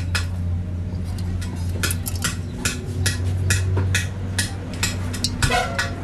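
Irregular sharp metallic taps and clinks, about two or three a second, over a steady low hum.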